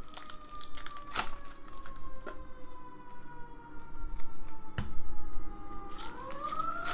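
Emergency-vehicle siren wailing, its pitch falling slowly for about six seconds and then starting to rise again near the end. A few sharp clicks of trading cards being handled come over it.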